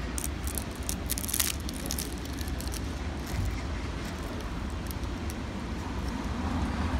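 A table knife sawing through the flaky crust of a glazed pastry on a ceramic plate, crackling sharply in the first second and a half, then softer. A steady low rumble sits underneath.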